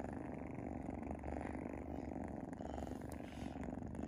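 Sphynx cats purring steadily, a mother cat nursing her suckling kittens, the purr swelling and easing in a slow rhythm.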